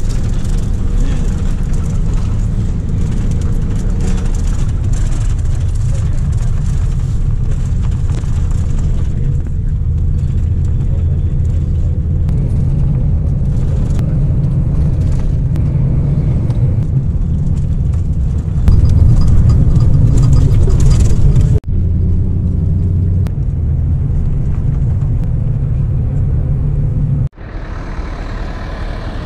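Steady low rumble of a motor vehicle on the road, breaking off abruptly twice in the later part.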